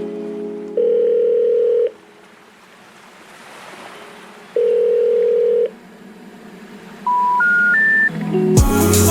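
Electronic beeps from an RC model's electronic speed controller: two long, steady beeps about four seconds apart, then three short beeps stepping up in pitch. Music fades out at the start and comes back with a beat near the end.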